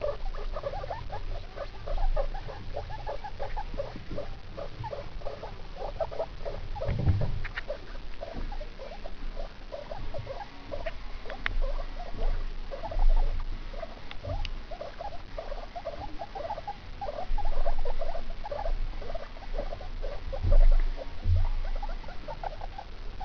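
Guinea pigs, an adult and her young pups, making a steady run of short squeaky calls, several a second. A few low bumps sound among them.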